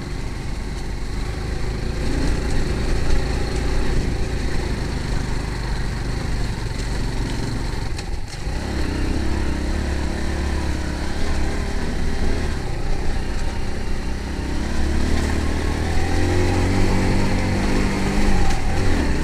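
An engine running steadily, with a brief dip about eight seconds in and a stronger low throb after it.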